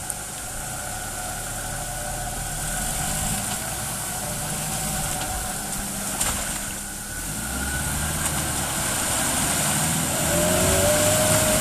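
A vehicle engine running off-road, getting louder over the last few seconds, with a brief whine near the end.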